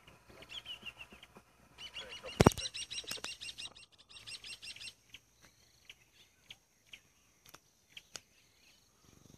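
Birds chirping in quick repeated calls for a few seconds, with one sharp knock about two and a half seconds in, the loudest sound. After that come scattered soft clicks over a faint steady insect trill.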